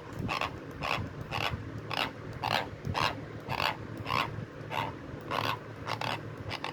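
Teeth grinding: short, rasping strokes of one set of teeth scraping across the other, repeated evenly about twice a second, the sign of bruxism during illness.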